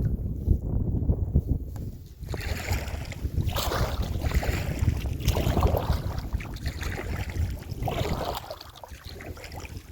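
Paddle strokes swishing through the water of a creek, one every two seconds or so, from a packraft being paddled, over a constant low rumble of wind on the microphone.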